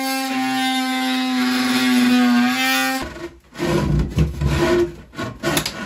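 Ryobi cordless oscillating multi-tool running at a steady, even pitch as its blade cuts cabinet plywood, stopping abruptly about three seconds in. Then a run of irregular wooden knocks and rubbing as a loosened plywood cabinet panel is pushed and worked free.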